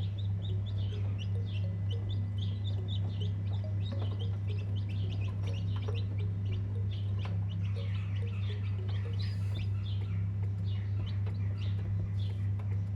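Many baby chicks peeping: a dense stream of short, high, downward-sliding cheeps, over a steady low hum.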